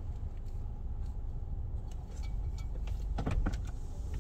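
Ryko Voyager II rollover car wash running, heard from inside the car: a steady low rumble of wash machinery and water spraying onto the car, with a few light knocks about three seconds in.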